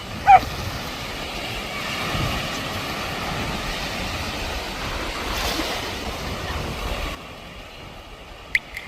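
Surf washing with wind on the microphone, and a single short dog bark just after the start. The wash drops away suddenly about seven seconds in, leaving a quieter background with a sharp click near the end.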